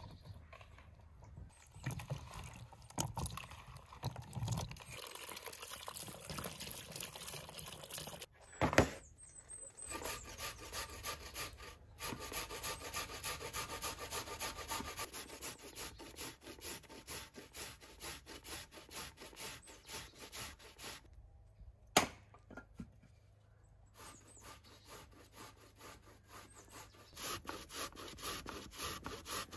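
Rapid, rhythmic scraping strokes of food being worked by hand, in several stretches, with a sharp knock about nine seconds in and another about twenty-two seconds in.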